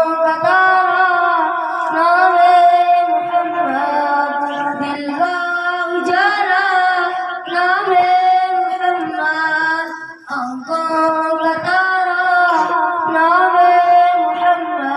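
A boy singing solo without accompaniment: a long melodic line of held, wavering notes, with a short break for breath about ten seconds in.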